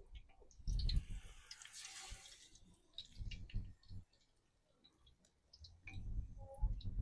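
Spoonfuls of besan pakora batter going into hot oil in a kadhai: the oil sizzles in a hiss that swells about a second in and fades, with scattered small clicks and a few low bumps.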